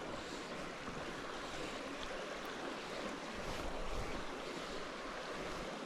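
Steady rushing of a river flowing over its bed, an even wash of water noise.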